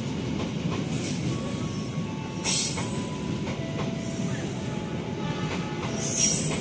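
Passenger coaches of a locomotive-hauled train running through a station without stopping: a steady rumble of wheels on rail, with brief high-pitched squealing hisses about two and a half seconds in and again near the end.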